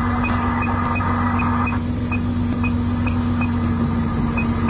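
A boat's engine running steadily with a low, even drone, heard from inside the wheelhouse. A hiss over it stops about two seconds in, and faint short high pips sound every half second or so.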